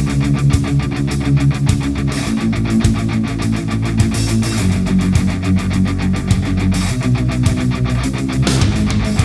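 Background music: a driving electric-guitar rock track with a fast steady beat.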